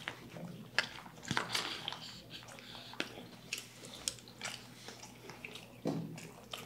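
Close-up eating sounds: biting and chewing into a fried-chicken Krunch burger and mouthfuls of spiced rice, with scattered sharp, irregular mouth clicks and crunches.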